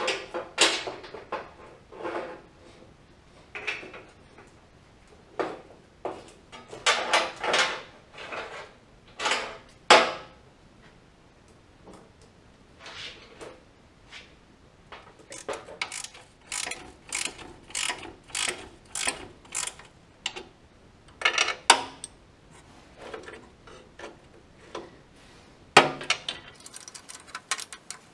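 A steel wrench clinking and clicking against hydraulic hose fittings on a tractor frame: irregular sharp metal taps, a run of about two clicks a second in the middle, and quick ticking near the end.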